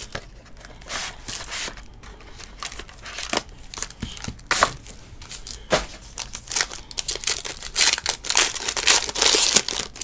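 Foil trading-card pack wrapper and plastic wrap crinkling and tearing as hands peel them open, in irregular bursts of crackle that are busiest near the end.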